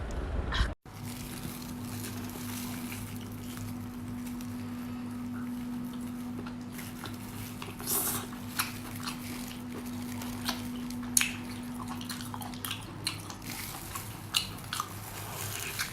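Cooking sounds: scattered clinks and taps of utensils against cookware, with a few short hissy bursts and drips, over a steady low hum that stops about thirteen seconds in.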